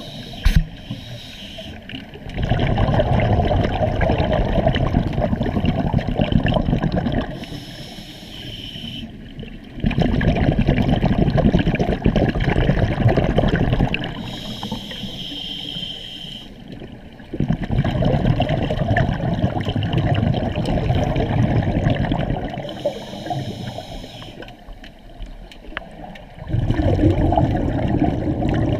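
A scuba diver breathing through a regulator, heard underwater: four long, loud bubbling rumbles of exhaled air, each followed by a quieter hiss of inhalation. A sharp knock comes about half a second in.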